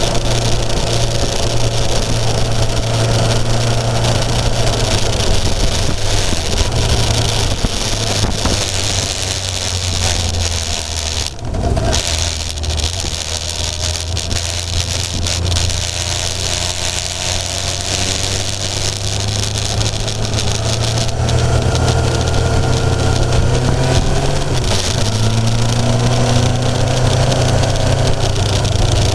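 Kawasaki inline-four motorcycle engine heard on board while riding, running steadily under wind rush. The note drops off briefly about eleven seconds in, then climbs in pitch as the bike accelerates from about twenty seconds on.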